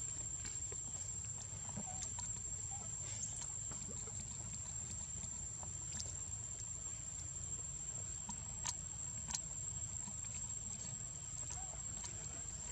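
Outdoor ambience: a steady low rumble with a thin, unbroken high-pitched whine over it, and a few faint sharp clicks scattered through.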